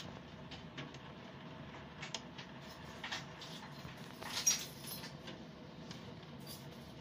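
Heavy thunderstorm rain as a steady hiss, with scattered sharp taps, the loudest about four and a half seconds in.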